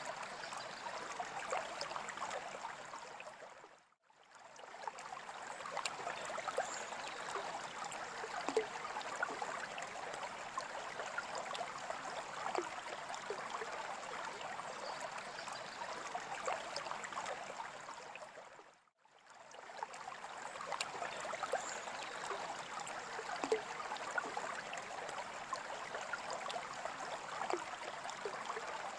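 Aquarium water trickling and splashing steadily with a dense patter of small drips and bubbles. It briefly fades out and back in twice, about 4 and 19 seconds in.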